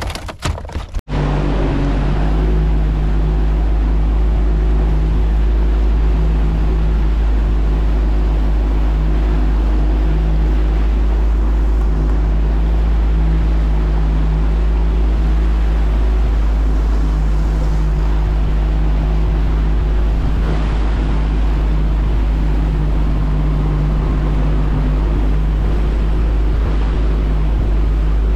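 Outboard motor of a small fishing boat running at a steady speed while trolling, a constant drone with a strong low rumble. It cuts in about a second in and holds level throughout.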